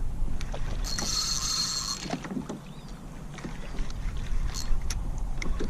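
Fishing reel whirring for about a second, beginning about a second in, as a big, hard-fighting redfish is played on light tackle, with scattered clicks and knocks from the rod and kayak.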